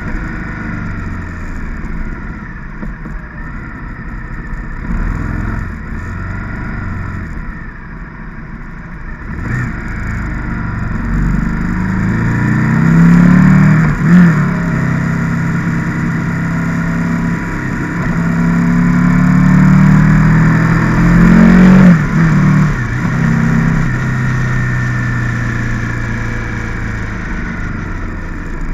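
Riding noise from a moving motorcycle: wind and road rush with a low hum that rises and falls in pitch, swelling about halfway through and again near three quarters.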